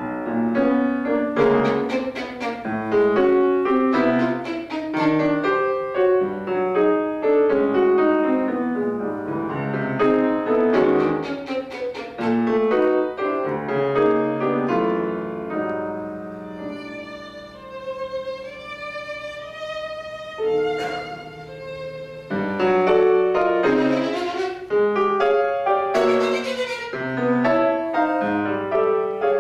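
Violin and grand piano playing together, starting suddenly and loud after a near-silent pause. Fast, dense passages thin out about halfway to a high violin line with vibrato over little else, then both come back in full.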